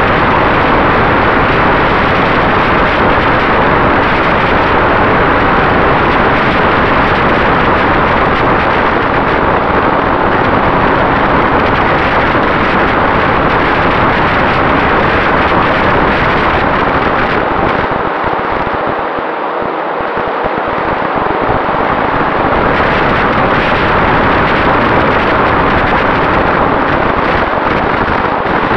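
Airflow rushing over the onboard action camera's microphone on a Volantex Raptor 1600 EX FPV plane in flight, with a steady whine from its 2836 brushless motor and 7x5 propeller. The rush eases briefly about two-thirds of the way through.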